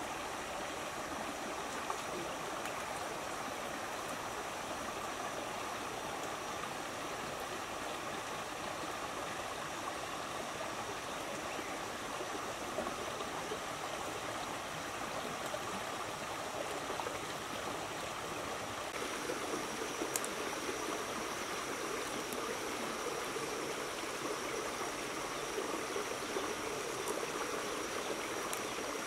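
Shallow river water running steadily over rocks, an even rushing sound.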